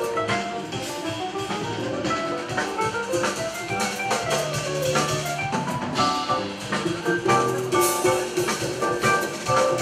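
Jazz piano trio playing live: piano runs over a drum kit with busy cymbal and drum strikes, and a bass line underneath.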